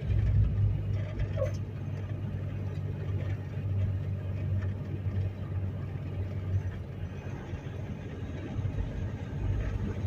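Vehicle driving slowly, heard from inside the cabin: a steady low engine hum with road and tyre noise.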